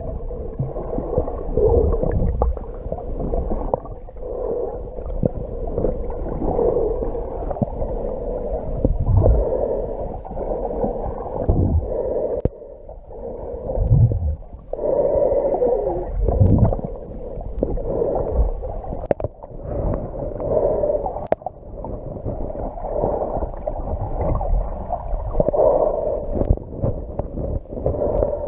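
Muffled underwater sound picked up by a camera held below the surface while snorkelling: water sloshing and gurgling against the camera, swelling and fading every couple of seconds.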